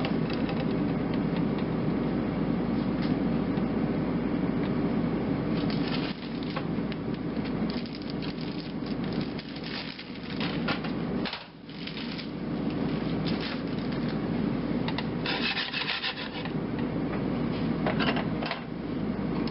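Diced Spam frying in olive oil in a nonstick frying pan: a steady sizzle that briefly drops away a little over halfway through. Scattered scrapes and light knocks come from the cutting board and the pan as cubes are pushed off into it.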